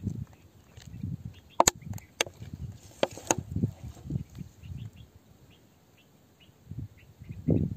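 Close handling noise: low thuds with a few sharp clicks as a small crystal is handled on wet rock. Faint, short bird chirps sound in the background.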